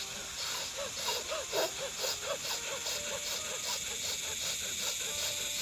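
A person doing Bhastrika pranayama, breathing in and out forcefully through the nose in a quick, even rhythm of several breaths a second.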